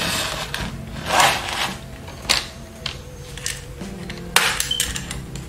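Plastic screen bezel of a Lenovo ThinkPad E470 being pried off its clips with a utility-knife blade: a few short scrapes and snaps as the clips release, the sharpest click about four seconds in.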